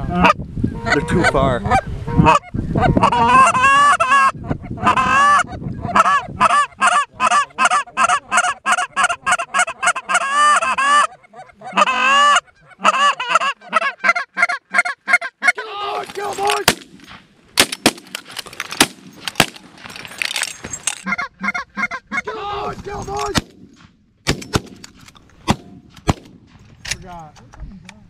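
Canada geese honking: a fast, dense run of honks for about the first ten seconds, then scattered honks with a string of short sharp clicks through the second half.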